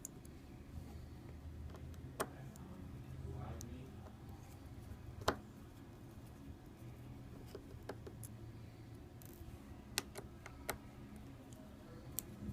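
Small screwdriver taking the many tiny screws out of a Samsung Galaxy S4's housing: faint ticks and scrapes with a handful of sharp clicks of little metal screws and the tool, the loudest about five seconds in, over a steady low hum.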